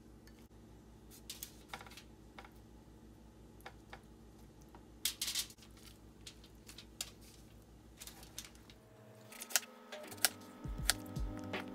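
Hands working crumb coating onto fish on aluminium foil: scattered light clicks and a brief crinkle of foil about five seconds in, over a low steady hum. From about nine seconds in, a kitchen knife slicing an apple, with sharp knocks of the blade on a plastic cutting board.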